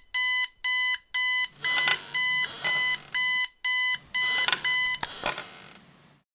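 Electronic alarm beeping, about two short beeps a second, which stops about five seconds in as the phone is picked up. Rustling of movement runs under the later beeps, with a click as they end.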